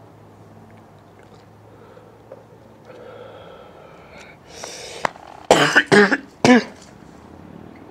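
A man coughing hard on bong smoke: a breathy rasp, then three loud coughs in quick succession about two-thirds of the way in.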